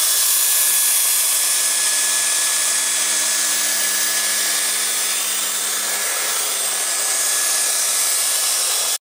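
Dyson V10 cordless stick vacuum running in handheld mode with its small couch attachment, a steady, loud, hissing rush of air with a faint thin whine over it. The sound cuts off suddenly near the end.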